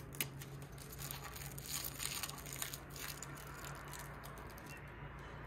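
Crinkling and rustling of handled packaging with a few sharp clicks, busiest from about one and a half to three seconds in, over a steady low hum.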